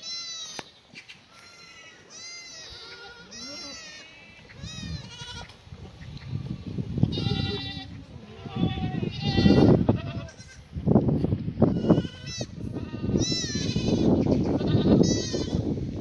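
A herd of black goats bleating: many overlapping, wavering calls one after another. From about five seconds in, a louder low noise builds underneath them.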